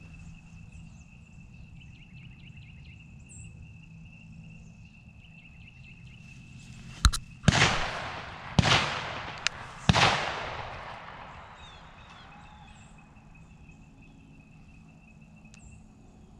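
A sharp crack, then three shotgun shots about a second apart, about seven seconds in. Each shot trails a long echo that fades over a couple of seconds.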